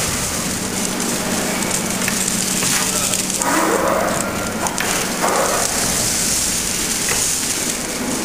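Wet concrete pouring from an overhead distributor hopper onto the steel reinforcement of a precast slab mould: a steady crackling, rain-like hiss. A steady low hum runs under it and stops a little past halfway.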